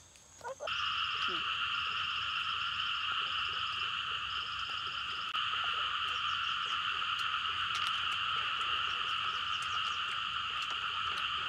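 A dense chorus of frogs calling, blending into a steady trilling wall of sound that starts abruptly less than a second in, with a fainter, quicker pulsing above it for the first few seconds.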